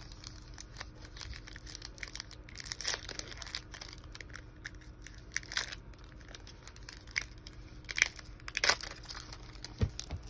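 Plastic wrapper of a Topps baseball card pack crinkling and tearing as it is handled and ripped open, in crackly bursts about three seconds in and again around eight to nine seconds.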